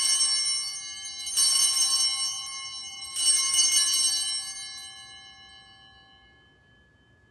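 Altar bells rung three times at the elevation of the consecrated host, each ring a cluster of bright high chimes that fades over a couple of seconds before the next. The last ring dies away about two-thirds of the way through.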